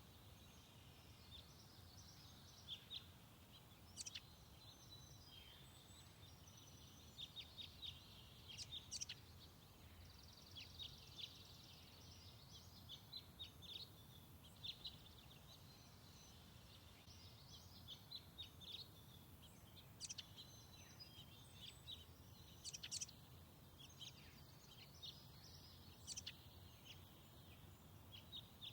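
Faint birdsong: many short, high chirps and trills from several birds, scattered throughout, over a low, steady background rumble.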